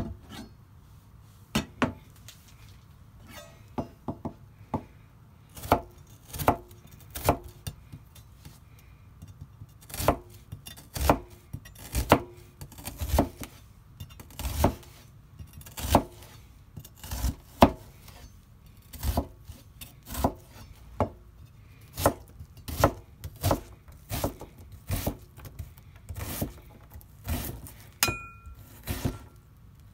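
Kitchen knife chopping onion on a plastic cutting board: a run of sharp, uneven knocks, sparse at first, then about one to two a second as the onion is diced.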